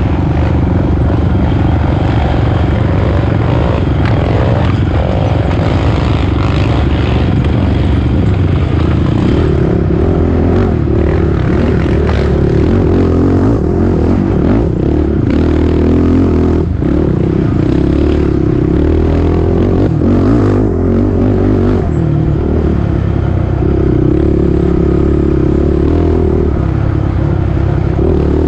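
Race ATV's engine heard close from on board, running hard along a rough dirt trail, its revs rising and falling as the rider works the throttle. The chassis rattles, with occasional sharp knocks over bumps and roots.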